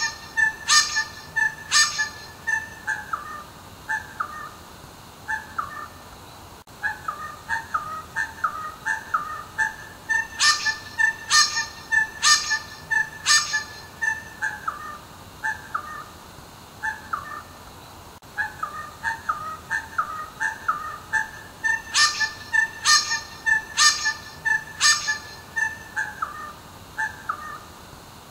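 Little wattlebird calling over and over: every eleven seconds or so comes a burst of about four loud, harsh notes, and between the bursts runs a quick series of short falling notes.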